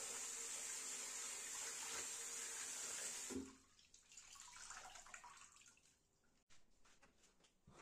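Water running steadily from a tap, then turned off with a knock about three seconds in; after that, faint handling sounds and a few light clicks.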